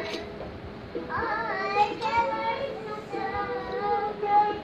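A young child's singing voice carrying a tune with several held notes, starting about a second in.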